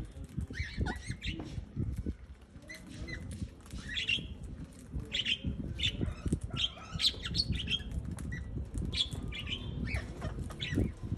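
Ring-necked parakeets calling in many short, high chirps and squawks, with wings flapping and rustling throughout.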